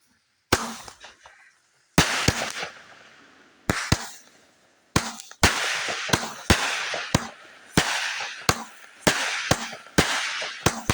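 Consumer fireworks going off: a rapid, irregular string of sharp bangs, about two a second after a lone first shot, with a crackling hiss trailing between the reports.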